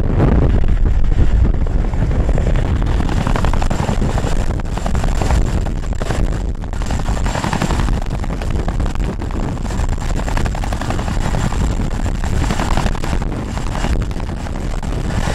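CH-47 Chinook tandem-rotor helicopter hovering low with a sling load: a loud, steady rotor chop of rapid pulses over a heavy low rumble.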